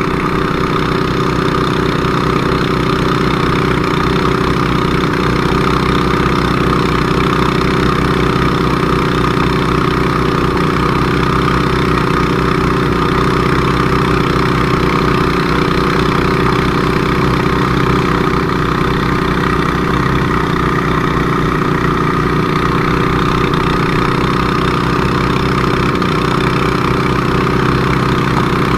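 Fire-fighting pump engine running steadily at one constant speed during an engine test, with an even firing beat and a steady whine above it.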